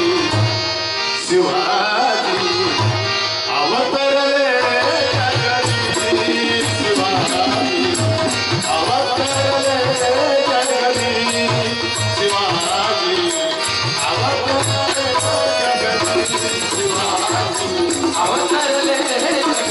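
A Marathi devotional bhajan: a male lead singer sings in phrases over steady harmonium chords. Tabla drums keep a rhythm, and small hand cymbals tap out a regular beat that comes in clearly after about six seconds.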